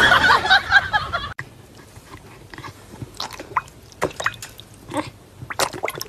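A dog lapping and splashing water in a bowl, heard as irregular wet laps and splashes. It follows a louder mixed sound in the first second and a half that ends abruptly at a cut.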